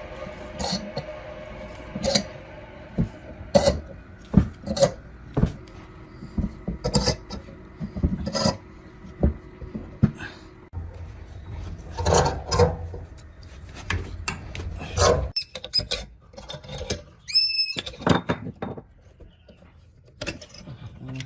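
Irregular clicks, taps and knocks of metal parts and tools being handled during hand work on an electric water pump, with a brief ringing tone about seventeen seconds in.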